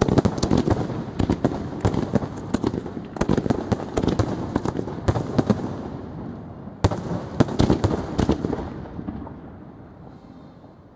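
Professional fireworks display: aerial shells bursting in rapid volleys of sharp bangs, the noise dying away over the last couple of seconds.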